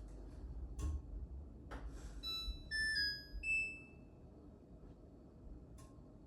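Samsung WW6800 washing machine control panel: two button clicks, then a short electronic chime of several beeping notes, the last one held longer and fading out. One more click with a brief beep comes near the end.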